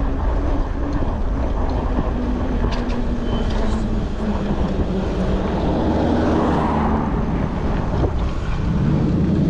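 Road traffic passing on the street alongside, heard through a steady wind rumble on the microphone of a moving e-bike, with a few light clicks about three seconds in.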